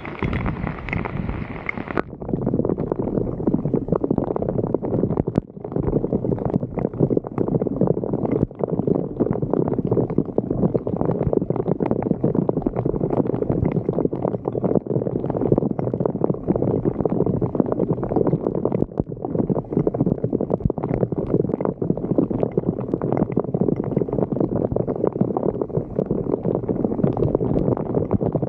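Floodwater gurgling and churning, draining through a street sewer drain, with many small splashes and clicks. The sound turns duller about two seconds in.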